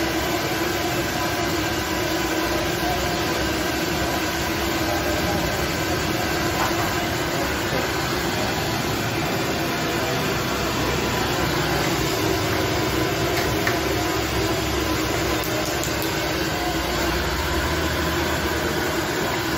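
Dough sticks deep-frying in a large wok of hot oil on a burner: a steady sizzle with the burner's steady rush underneath.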